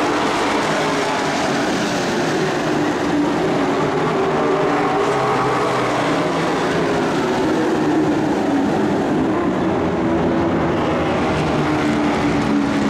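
Several racing pickup trucks' engines running hard as the field laps the speedway oval. The overlapping engine notes rise and fall in pitch as the trucks pass.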